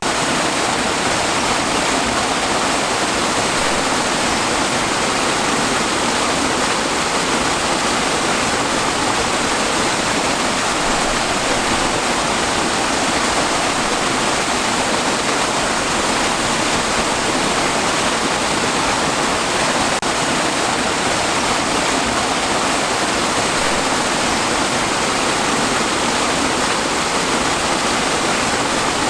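Waterfall: water pouring and splashing in a steady, dense rush with no change.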